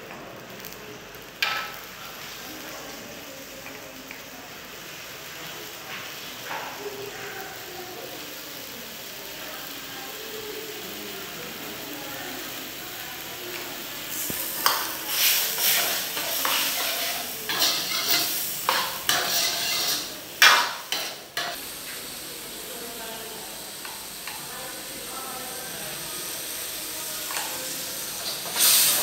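Sauce sizzling steadily in a wok over a gas burner, with a steel ladle stirring and scraping against the wok in a busy run of strokes from about halfway through for some seconds, and again near the end. A single clink sounds near the start.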